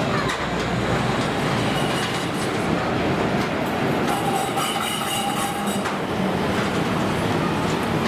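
Wuppertal Schwebebahn suspension railway cars running on the overhead steel track: a steady loud rumble with clattering clicks from the wheels, and a brief high wheel squeal about halfway through.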